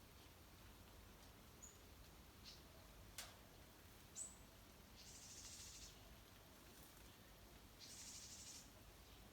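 Faint wild-bird sounds at a garden bird bath: two brief high chirps, a single sharp click a few seconds in, and two short rustling bursts near the end.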